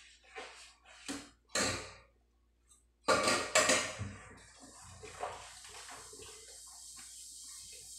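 Dishes being washed by hand in a stainless steel sink: irregular clinks and scrubbing in the first half, a louder cluster about three seconds in, then tap water running steadily with small knocks of dishes over it.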